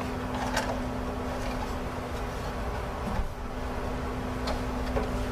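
Faint light clicks and plastic handling as a RAM stick is lined up in a motherboard DIMM slot, over a steady low hum.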